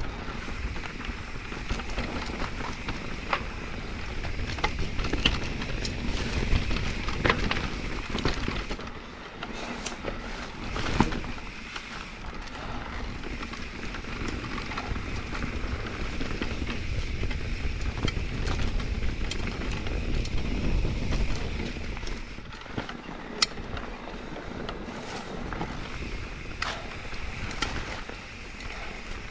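Trail noise from an e-mountain bike riding down a rocky singletrack: tyres rolling and crunching over loose stone and sand under a steady low rumble of wind and vibration on the camera, with frequent clicks and knocks from the bike and rocks, one sharper knock about a third of the way in.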